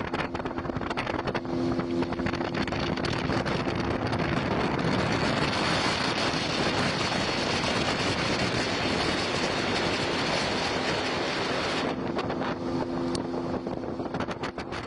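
Motorboat running across the lake, its engine giving a steady hum under heavy wind noise on the microphone. The rush of wind and water swells through the middle and covers the engine's hum, which comes back near the end.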